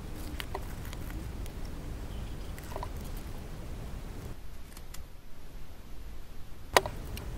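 Faint handling noise of foam pieces being fitted and pressed onto a foam model boat hull: scattered light taps and rubs, with one sharp click near the end, over a steady low rumble.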